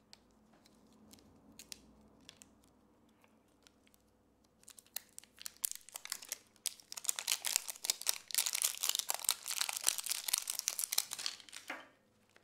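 A surprise egg's wrapper being handled, then crinkled and torn open. There are a few light clicks at first, then a long stretch of dense crinkling that grows loudest near the end and stops abruptly.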